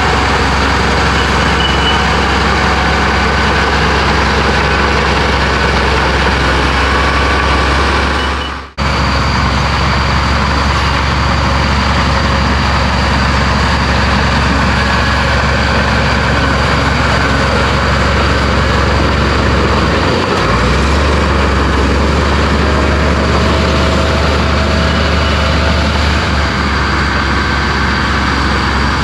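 Komatsu bulldozer's diesel engine running steadily under work, with a heavy low drone. The sound cuts out for an instant about nine seconds in, and the engine note steps up about twenty seconds in.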